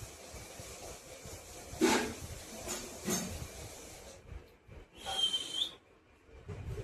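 A short, steady, high-pitched whistle lasting under a second, about five seconds in, after a few seconds of faint hiss with two soft knocks.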